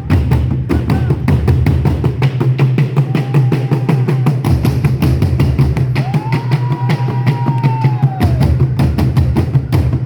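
African drumming: many fast, dense strokes in a steady rhythm over a deep low boom, with a few long held high notes sounding over it.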